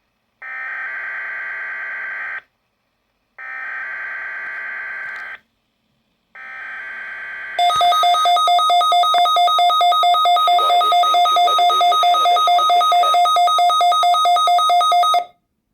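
Emergency Alert System broadcast tones: three short bursts of buzzing SAME header data, then a loud two-tone attention signal with a regular pulse that runs about seven seconds and cuts off.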